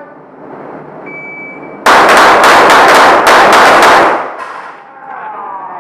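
A shot timer's steady high start beep. Then a rapid string of pistol shots, about four or five a second for about two seconds, loud enough to overload the recording, and ending in a short echo off the concrete walls of the indoor range.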